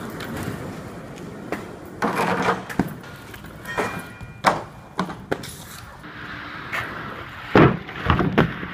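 Aggressive inline skates rolling on pavement, with several sharp clacks and knocks of skates hitting hard surfaces; the loudest, a hard smack near the end, comes as the skater jumps up onto a picnic table.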